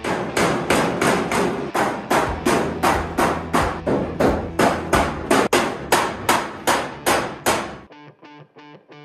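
Rapid hammer blows on metal, about three a second, each with a short ring, stopping abruptly about eight seconds in; quieter guitar music follows.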